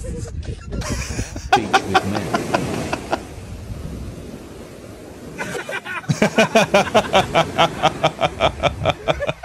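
Hearty laughter in quick, rhythmic bursts: a short fit about a second and a half in, then a softer stretch, then a longer, louder fit of about five laughs a second from about six seconds in.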